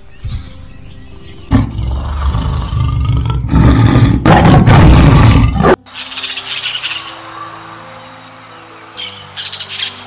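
A tiger roaring: a deep sound that starts about one and a half seconds in, grows louder midway and cuts off suddenly near six seconds. After it, a bird's quick high chirps come in two short runs, over soft background music with held notes.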